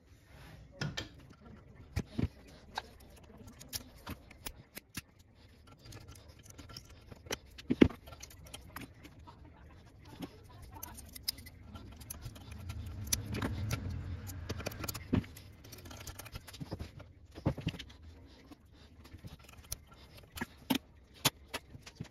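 Small metal pressure-washer pump parts clinking and knocking against each other and the steel vise as they are handled, in scattered sharp clicks. A low rumble swells and fades about halfway through.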